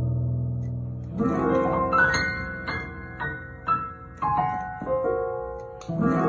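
Solo piano playing: a held low chord, then rising arpeggiated runs climbing into the treble, with repeated high notes and a second upward sweep near the end.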